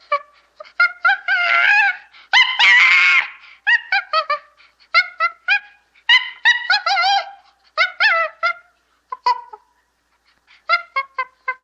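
Chimpanzee calling: bursts of short, pitched hoots in quick series, with a longer harsh scream about two and a half seconds in.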